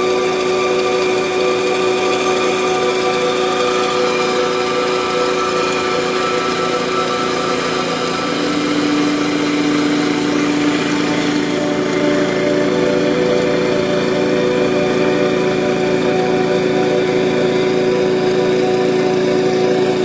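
Engine of a small rice combine harvester running steadily under load as it cuts and threshes rice, a continuous drone with a few steady tones.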